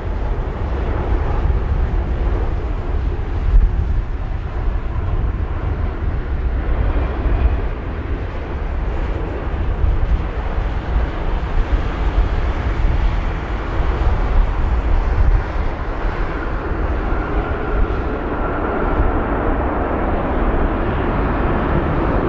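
Airbus A380 jet engines on landing: a steady jet roar with a heavy wind rumble on the microphone. Near the end the sound swells and a higher whine comes in.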